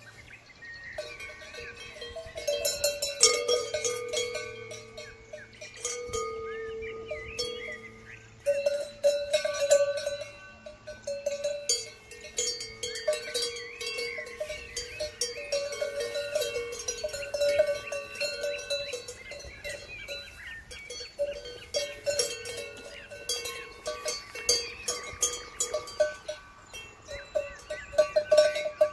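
Several brass cowbells on grazing cows clanking and ringing irregularly as the cows move their heads. The strikes come thick and overlapping into a continuous jangle.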